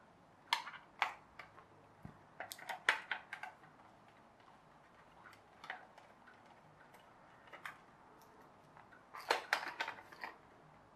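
Scattered light plastic clicks and taps: a small screwdriver working screws out of a plastic toy car's base, and the plastic car body being handled. There is a quick run of clicks near the end.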